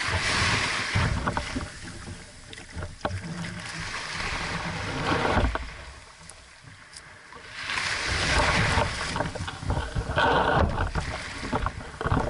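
Small waves surging and washing up around a dinghy's hull at the shoreline, rising and falling in four swells, with a few knocks and rattles from the boat's hull and rigging being handled.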